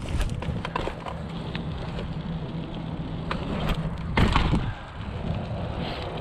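Mountain bike rolling over concrete, tyres rumbling with scattered clicks and rattles, then a heavy thump about four seconds in as the bike lands a drop off a low ledge.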